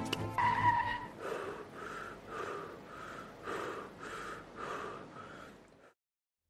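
A cartoon character panting hard after running, with short, even breaths at about two a second that cut off suddenly near the end.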